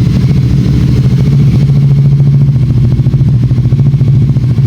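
Royal Enfield Continental GT 650's 648 cc parallel-twin engine running at idle with an even, steady exhaust beat, cold after two days unstarted.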